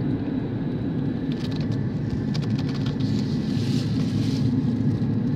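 Steady engine and tyre rumble of a car driving along a road, heard from inside the cabin, with a few light clicks between one and two and a half seconds in.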